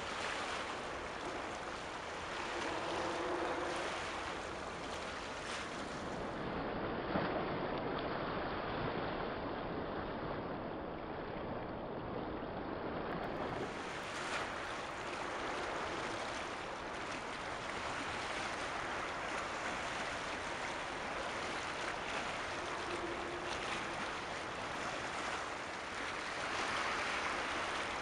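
Steady rush of wind and water at the edge of a sea strait as a large ferry passes, with no distinct engine note. For several seconds midway the sound turns duller, losing its hiss.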